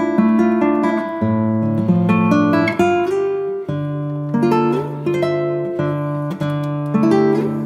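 Background music: a plucked acoustic guitar tune over steady low notes.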